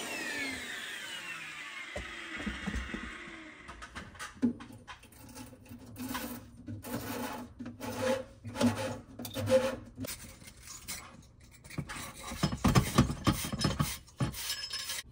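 Electric drill motor winding down with a falling whine, then irregular scraping and rubbing strokes.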